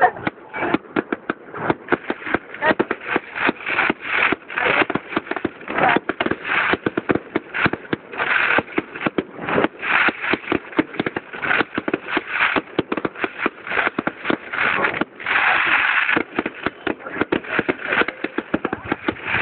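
Fireworks display: a rapid, continuous barrage of bangs and crackling, with bursts of hiss every few seconds.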